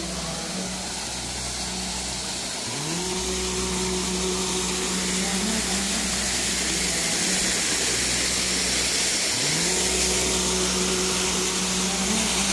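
An engine or motor running steadily under a constant hiss. Its pitch drops away and climbs back up to the same steady note twice, about two and a half seconds in and again about nine seconds in.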